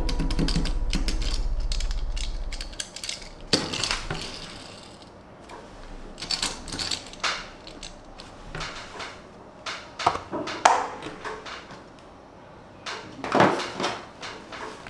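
Small die-cast toy car and its cardboard packaging being handled: scattered small clicks, taps and rustles. A low steady sound fades out about three seconds in.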